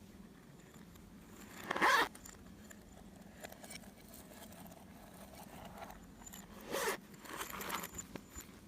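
Slime being handled and worked by hand: two short, loud rasping squelches, about two seconds in and about seven seconds in, with softer crackles after the second.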